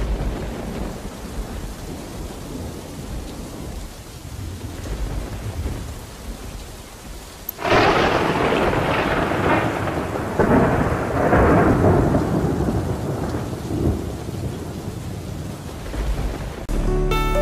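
Thunderstorm: steady rain with low rumbling thunder, then a loud thunderclap about seven and a half seconds in that rolls on in surges for several seconds before easing.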